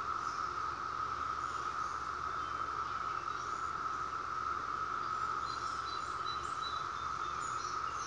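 Chorus of periodical cicadas: a steady, unbroken whir at a constant level, with a few faint short chirps above it.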